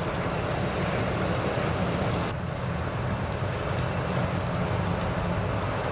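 Suzuki 225 outboard motor idling with a steady low hum.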